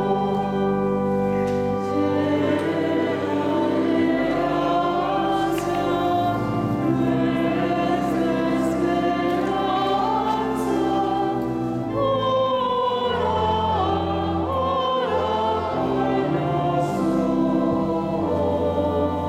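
Choir singing a slow hymn, with long held low notes sounding steadily beneath the voices.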